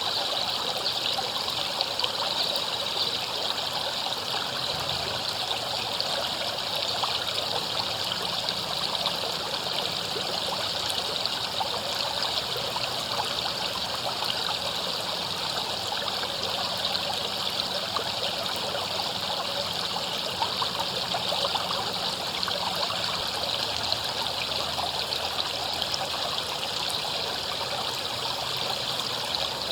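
River water flowing steadily over rocks, a continuous rushing with fine splashing and trickling.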